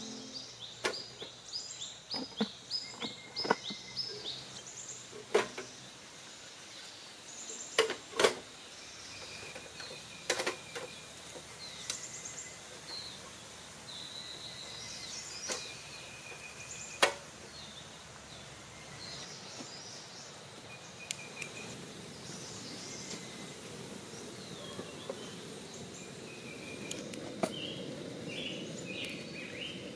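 Clunks and knocks of a portable gas stove being handled and set down, with birds chirping. From about two-thirds of the way in, the steady hiss of the lit gas burner under a kettle.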